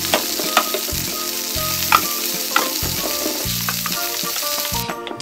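Frying sizzle sound effect from a toy kitchen stove, a steady hiss that cuts off suddenly near the end, with a few light clicks.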